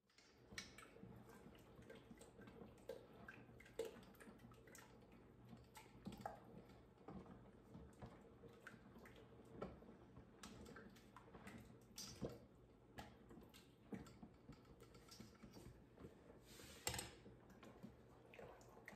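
Wooden spoon stirring thick tomato sauce in metal stockpots: irregular faint clicks and knocks of the spoon against the pot walls and rims, over a low steady hum.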